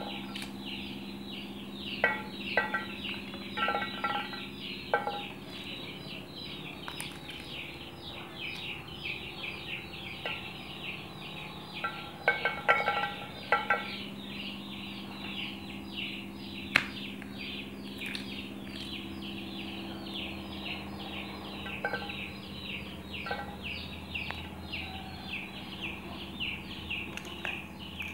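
Shelled peas dropping into an aluminium bowl, each landing as a sharp clink with a short metallic ring, in clusters about two to five seconds in and again around twelve to fourteen seconds in. Behind them birds chirp rapidly without a break, over a steady low hum.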